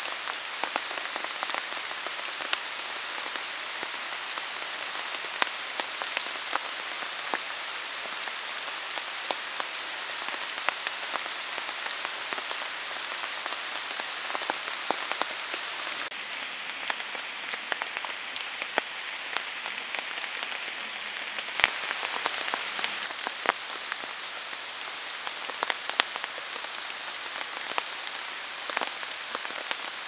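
Steady rain falling through woodland onto leaves and puddled ground. Close drops tick sharply here and there, with one sharper click about two-thirds of the way through.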